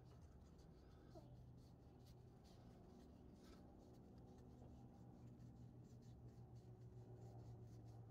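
Near silence: faint scratchy rubbing and light ticks from hands working close to the microphone, over a steady low hum.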